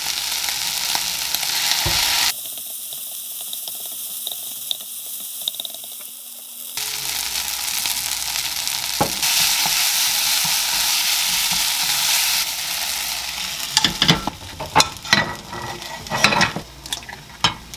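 Fried rice sizzling in a nonstick frying pan over a gas flame and being stirred with a wooden spoon. The sizzle drops away about two seconds in and comes back louder around seven seconds; near the end a run of sharp knocks and clatters follows as pans are moved about on the stove grate.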